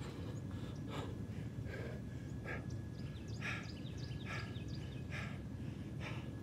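A man breathing hard after exertion, with deep, rhythmic breaths about once a second as he recovers between sets of push-ups.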